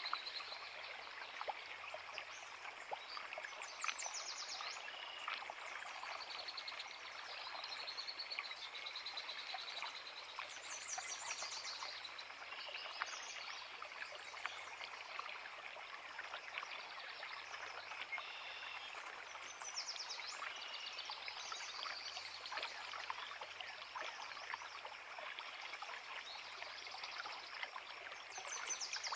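Small forest creek burbling steadily over rocks, with songbirds singing short phrases and high trills every few seconds.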